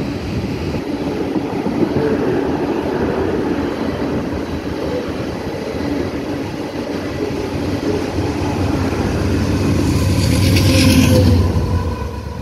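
Freight train of loaded ethanol tank cars rolling under the bridge, a continuous rumble of steel wheels on the rails. It swells to its loudest about ten seconds in as the tail end of the train passes beneath, then falls away near the end.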